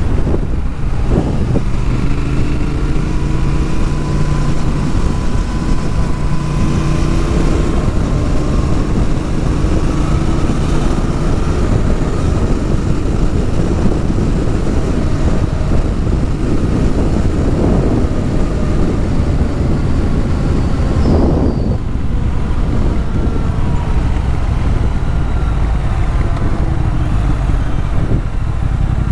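Triumph Thruxton RS motorcycle engine running on the move, mixed with wind and road noise. The engine note rises and falls with the throttle, with a short break about two-thirds of the way through.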